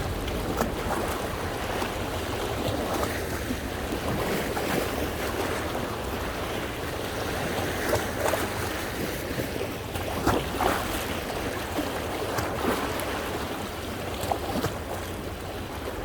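Sea waves washing against coastal rocks, with a few sharper splashes in the second half. Wind rumbles on the microphone throughout.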